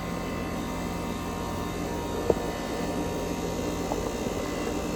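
New 3-ton Goodman central air conditioner's outdoor condenser unit running in cool mode, a steady whir with an underlying hum. A faint tick about two seconds in.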